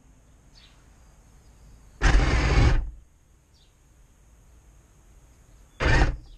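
Radio-controlled model tank driving in two short bursts of drive noise: one about two seconds in lasting just under a second, and a brief one near the end.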